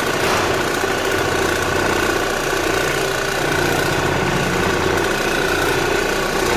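Square Scrub oscillating floor machine running steadily on hardwood, sanding the old polyurethane finish off ahead of a recoat.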